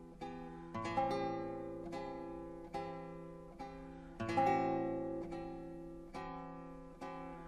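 Lute playing a slow introduction of plucked chords and single notes, each ringing and dying away, about a dozen in all. The fullest chords ring out about a second in and again about four seconds in.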